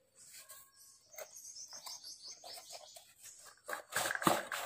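A bird chirping in a quick run of short, high, falling notes, then near the end a loud scrape and rustle as a plastic broom holder is slid out of its cardboard box.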